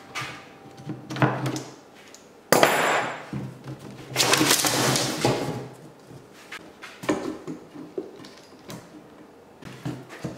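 Workshop handling noise as thin wooden strips are handled around a plywood ring form: scattered knocks and clicks, with two longer rasping scrapes about two and a half and four seconds in.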